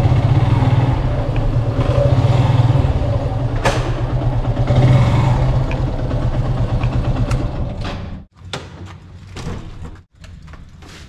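Motorcycle engine running steadily while the bike is ridden, with one sharp knock a little over a third of the way in. The engine sound stops about three quarters of the way through, and quieter clicks and clatter follow.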